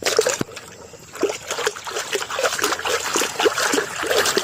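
Water splashing and trickling as muddy toys are washed by hand in a container of water: a busy, irregular run of small splashes and drips that starts suddenly.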